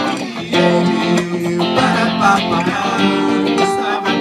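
Live band music: an acoustic guitar strumming chords together with an electric guitar.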